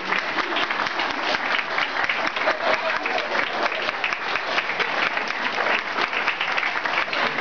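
Audience applauding, with dense steady clapping throughout.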